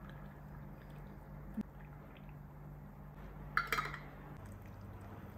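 Faint pouring of hot water into a glass jar of sliced zucchini, then a metal screw-top lid clinks several times on the glass jar rim about three and a half seconds in as it is set in place.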